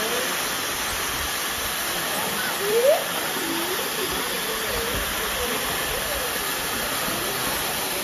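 Steady rush of a waterfall, with faint voices under it and one voice briefly louder about three seconds in.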